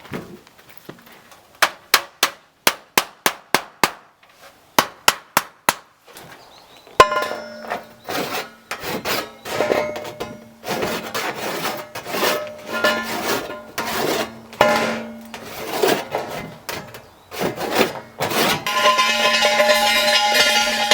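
Sharp tool blows on metal, about three a second for some eight strikes, then four more, consistent with hammering. About seven seconds in they give way to rhythmic rasping strokes, like filing or sawing metal, over a steady hum.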